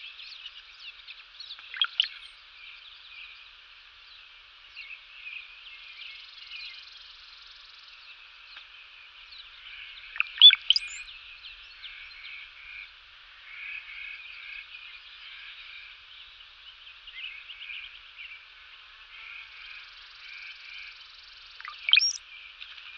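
A dense, steady chorus of small animal calls, like a nature-sound track. Three brief, louder calls sweep sharply upward about 2, 10 and 22 seconds in, the middle one the loudest.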